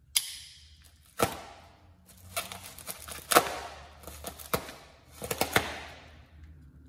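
Cardboard shipping box and packing paper being handled during unpacking: about six sharp clicks and rustles at irregular intervals, each trailing off quickly.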